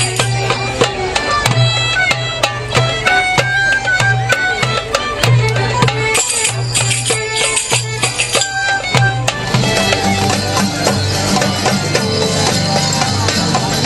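Live folk dance music: a small pipe plays a stepping melody over a low held drone, with regular beats on a hand-held frame drum. About nine and a half seconds in, the music changes to a denser, busier section.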